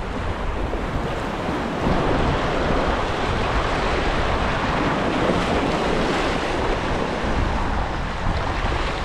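Surf washing and splashing against the granite jetty rocks, with wind buffeting the microphone; it gets a little louder about two seconds in.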